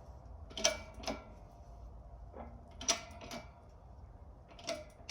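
Metal parts clinking and tapping: about seven sharp, irregular clicks with a short metallic ring, as steel transmission gears, shaft and press tooling are handled on the bench.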